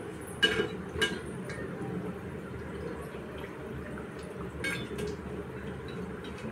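Dal vadas deep-frying in oil in a steel kadhai: a steady bubbling sizzle, with a few sharp metallic clinks of the steel slotted spoon against the pan, two close together near the start and another about two-thirds of the way through.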